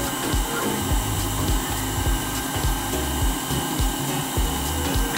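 Hot-air rework gun blowing with a steady hiss, used to reball a phone chip through a solder stencil.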